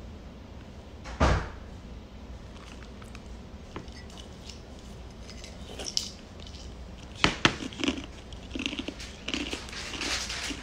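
Table-top handling sounds: a thump about a second in, a few light clicks, then two sharp knocks around seven seconds in as a drinking glass is set back down on the table. Near the end, bursts of crackly crunching.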